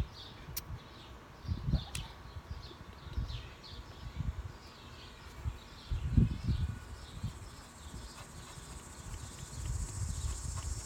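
Insects chirping: a quick, steady run of short repeated chirps, joined near the end by a high continuous trill. Soft low rumbles come now and then, the strongest about six seconds in.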